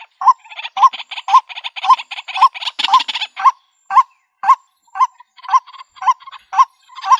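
White-breasted waterhen calling: a loud, monotonous croaking note repeated about twice a second, with rapid chattering between the notes that thins out about halfway through.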